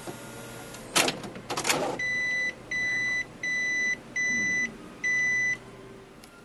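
Epson Stylus Photo PX730WD inkjet printer halting on a fault: two loud clattering knocks from its mechanism about a second in, then five evenly spaced high beeps, each about half a second long, the alert for its 'Printer error' condition.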